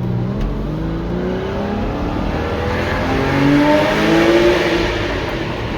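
Porsche 986 Boxster's flat-six engine accelerating through new exhaust headers. Its note rises steadily in pitch and grows louder for about four seconds, then eases off near the end.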